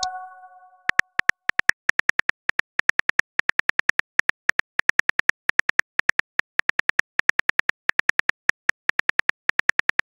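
Simulated phone-keyboard typing clicks: a long, even run of short identical taps, about five or six a second, beginning about a second in as a message is typed out. The tail of a message chime fades away at the start.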